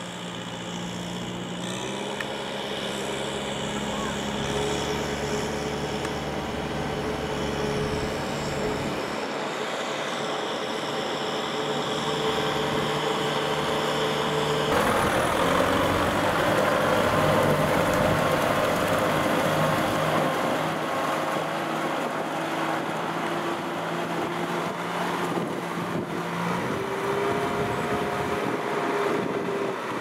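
Kubota M6040SU tractor's diesel engine running steadily under load while it works a muddy paddy field with its disc plough. The engine note changes abruptly about halfway through.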